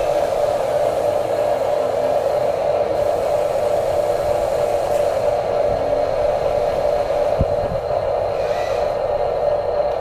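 Steady electric whir of the Huina 1593 RC excavator's motors as the boom lowers and the bucket digs into gravel. A short low thump comes about seven seconds in.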